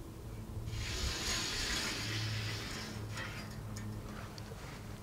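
Chalk scraping along the rusty steel side of a loader bucket, a scratchy hiss lasting about two seconds, with a few faint ticks after it and a steady low hum underneath.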